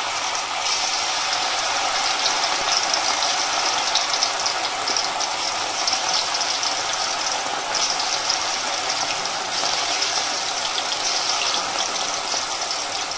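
Marinated chicken pieces deep-frying in hot oil: a steady sizzle with fine, continuous crackling.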